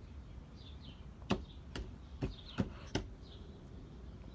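Watery glitter slime with sponge jelly cubes being poked and squeezed by hand. About five sharp wet clicks and pops come in quick succession, starting about a second in.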